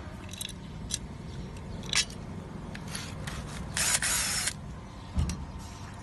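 Handling noise as a metal glass-door hinge clamp and a cordless drill are picked up and set in place: a few light clicks, a short hissing rustle about four seconds in, and a dull knock a little after five seconds.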